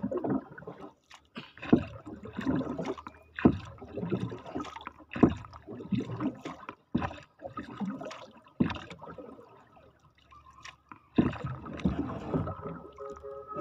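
Wooden paddle stroking through seawater beside a small wooden boat, each stroke a splash with a knock, about one every second and a half to two seconds, with water sloshing in between.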